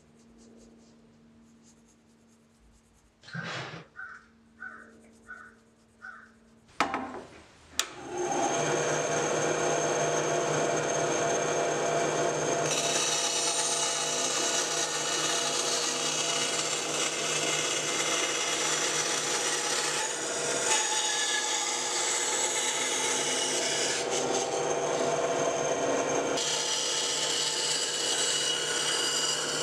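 Ryobi band saw starting up about eight seconds in after a few quiet, short knocks, then running steadily while its blade cuts a curved line through a wooden board. The saw's sound turns harsher and brighter about thirteen seconds in.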